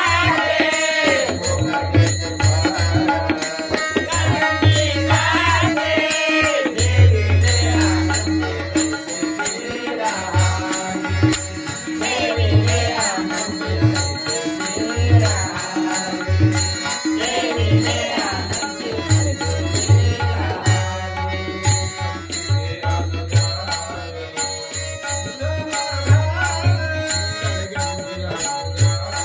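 Marathi devotional bhajan: voices singing a chant-like melody over deep, regular drum strokes and jingling hand cymbals.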